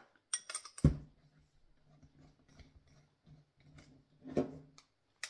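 Metal clinks and knocks of a long-shafted hand tool being set into the new Metabo 13 mm drill chuck and turned to tighten the chuck's retaining screw. The sharpest knock comes about a second in and another near four and a half seconds, with soft clicking in between.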